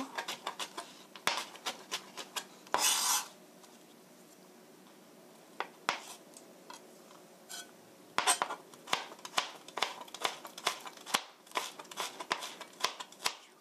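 Chef's knife chopping carrot on a plastic cutting board: a run of quick knocks as the blade hits the board, with a brief rasp about three seconds in. After a pause of about five seconds with only a few taps, the rapid chopping starts again.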